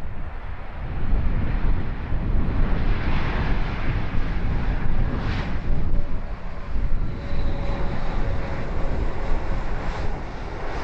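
Jet engines of a Lufthansa Airbus A330-300, Rolls-Royce Trent 700s, running on final approach to land. Heavy gusty wind buffets the microphone throughout.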